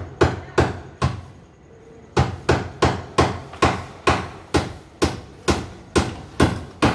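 A steady run of sharp knocks, about two to three a second, breaking off for about a second early in the run and then carrying on evenly.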